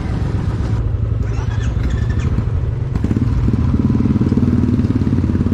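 Royal Enfield Classic 350's single-cylinder engine running at low speed with an even, rapid pulse, growing louder about three seconds in.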